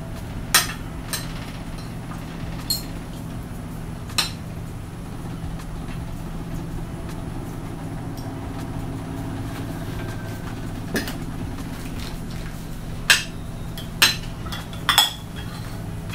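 Spoons and forks clinking and scraping against plates while eating, in scattered sharp clinks that come more often near the end, over a steady low hum.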